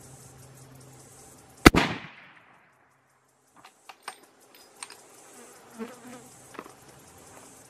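A single shot from a .375 CheyTac Improved long-range rifle about a second and a half in: one sharp, loud report that rings out briefly. A few faint clicks follow, over a background of insects buzzing.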